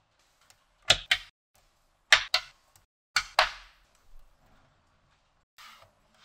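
Small magnetic balls snapping together with sharp clicks, in three quick pairs about a second apart, then a softer scraping rub near the end.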